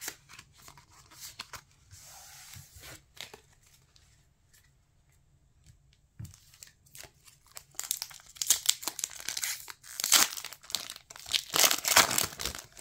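Foil Pokémon booster-pack wrapper crinkling and being torn open by hand, loud crackling from about eight seconds in. Before that come a few light clicks and taps of cards being handled.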